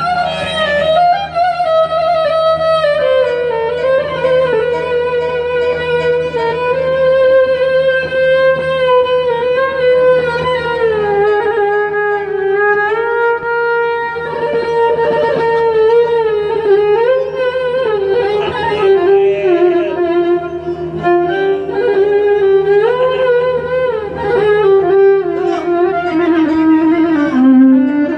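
Solo violin playing a slow melody with sliding notes and vibrato, over a steady low hum.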